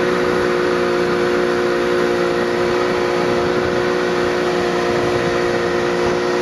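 Motorboat engine running at a steady speed while the boat is underway, a constant hum with an even rush of noise over it.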